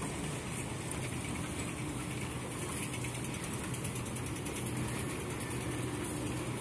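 Metro station concourse ambience: a steady mechanical hum with a faint, fast, even ticking over it.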